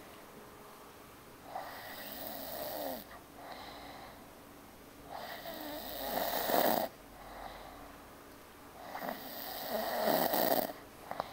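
A man snoring in his sleep: three long snores, about four seconds apart, each followed by a shorter, softer breath out.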